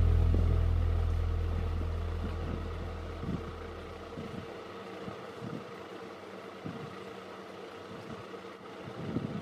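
Background acoustic guitar music dies away over the first few seconds. Then come faint hiss and soft, irregular scratching and tapping of a pencil drawing fine lines on paper.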